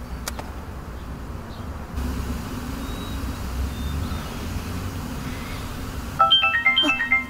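A mobile phone ringtone starts about six seconds in: a quick melody of short, bright notes hopping between pitches, over a steady low hum.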